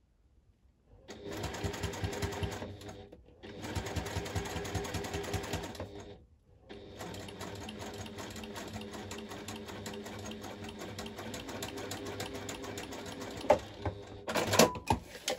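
Domestic electric sewing machine stitching a zip onto clear vinyl. It runs in three stretches, with short pauses about two seconds in and about six seconds in, then runs steadily until near the end, where a few sharp clicks follow.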